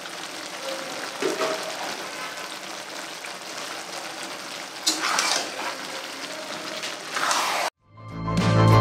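A vegetable mixture of onion, tomato and peas sizzling steadily in oil in a kadai, briefly louder twice. It cuts off suddenly near the end, and music fades in.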